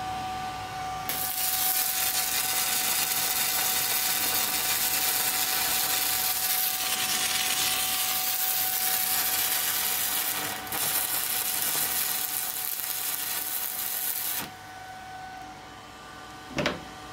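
Stick (MMA) arc welding with a 4 mm electrode on an inverter welder set to 200 A. The arc crackles and sizzles steadily for about thirteen seconds, with a brief break a little past the middle, and stops a couple of seconds before the end. A steady high tone runs underneath, and a short sharp sound comes near the end.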